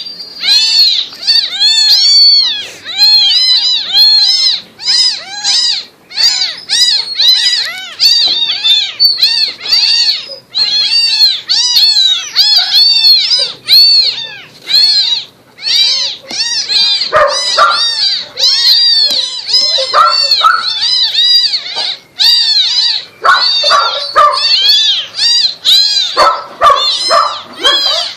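A small kitten mewing over and over in a rapid string of short, high-pitched cries, several a second. From about 17 seconds in, lower-pitched cries are mixed in with them.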